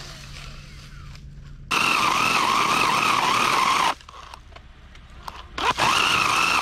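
Battery-powered mini cordless chainsaw whining as it cuts into a cedar trunk. It runs for about two seconds and stops sharply, then spins up again with a rising whine near the end.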